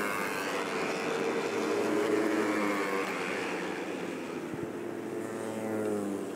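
Several 400 cc production racing motorcycles running hard at high revs. Their engine note rises and falls as they go by and change gear.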